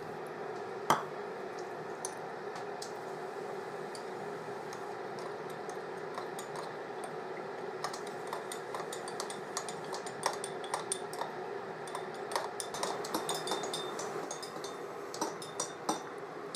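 A metal teaspoon stirring cornflour and water into a paste in a small ceramic bowl, with light clinks against the bowl that come thick and fast in the second half. A steady hum runs underneath.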